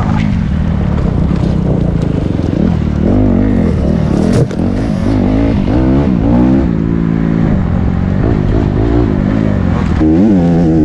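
Enduro motorcycle engine heard from on the bike as it is ridden along a rough trail, the revs rising and falling again and again with the throttle and gear changes. A single sharp knock comes about four and a half seconds in.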